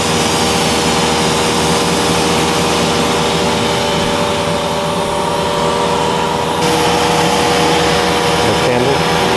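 Steady, loud hum of an electric air blower running, keeping an inflatable ride pumped up, with several pitches held at once.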